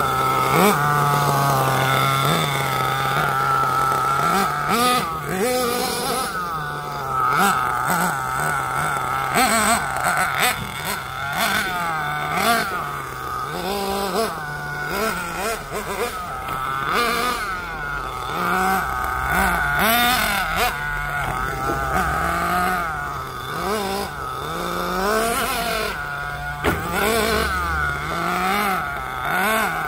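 Mad Force RC monster truck's motor revving up and down over and over as it is driven, each throttle burst rising and falling in pitch every second or two.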